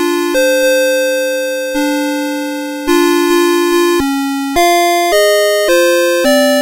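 CITIZEN Melody Box 30 series alarm clock playing its electronic alarm melody: a simple tune of bright, beepy synthesized notes, each starting sharply and fading away.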